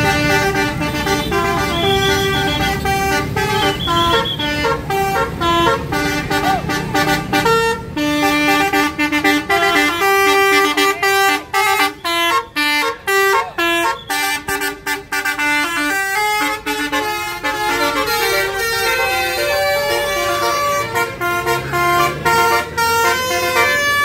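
Basuri telolet musical air horns on tour buses playing tunes: several horn notes held and switched in melodic runs, breaking into rapid short toots in the middle.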